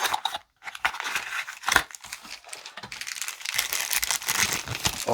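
Knife packaging being unwrapped by hand: a continuous run of irregular crinkling and rustling with some tearing.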